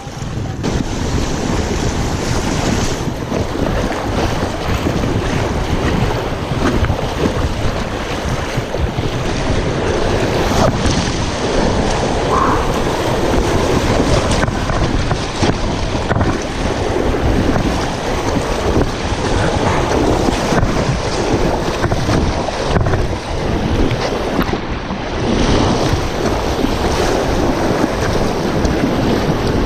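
Rushing whitewater of a low class 2 river rapid, a loud, steady roar of water, with wind buffeting the microphone.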